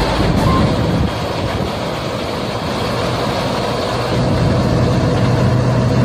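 Tractor-drawn Punni combine harvester running steadily under load, its tractor engine and threshing and straw-blowing machinery making a dense mechanical noise. It drops a little about a second in and grows louder again with a steady low hum from about four seconds.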